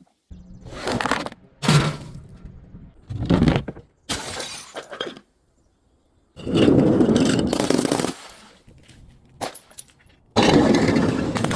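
Objects, glass bottles among them, being crushed and broken in a series of about six separate crunches with pauses between them; one longer crunch sits in the middle and another starts near the end.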